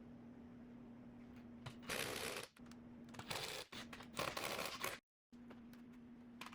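Faint steady hum with three short bursts of rustling, scraping handling noise, about two, three and a half, and four and a half seconds in; the sound cuts out completely for a moment just after five seconds.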